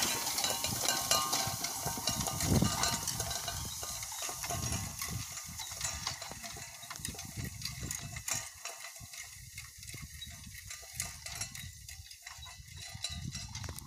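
Horse-drawn wheel rake working through hay: irregular clanking and rattling of its iron frame and spoked tine wheels, with the two horses pulling it, growing steadily fainter as it moves away.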